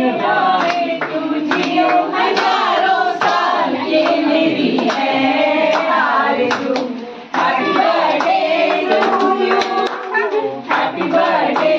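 A group of people clapping their hands in rhythm while singing together, with a short break in the sound about seven seconds in.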